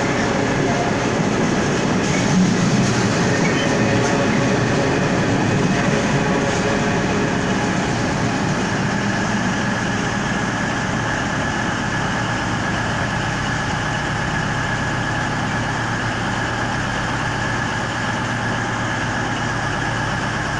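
Long freight train of mostly empty container flat wagons rolling past on the rails, fading as the last wagons go by about halfway through. A diesel passenger train's engines hum steadily alongside.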